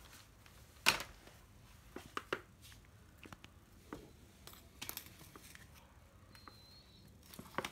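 Sporadic light clicks and knocks of a plastic cordless drill being handled and set down, with a sharper knock about a second in.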